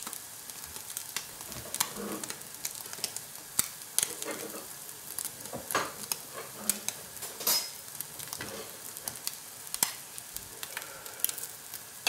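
Whitebait fritter frying in butter in a non-stick pan: a steady sizzle broken by frequent sharp little crackles and pops.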